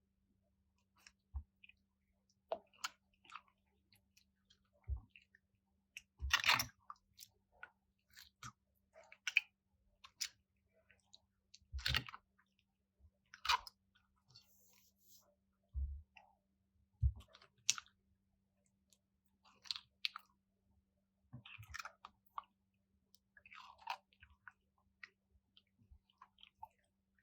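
Crunchy slime being worked and squished, giving irregular short bursts of crackling and crunching every second or two, the loudest about six and twelve seconds in.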